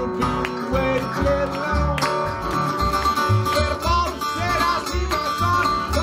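Country blues played on a resonator guitar in open D, with a harmonica bending and wavering notes over it and a washtub bass plucking a steady beat of deep notes; no singing.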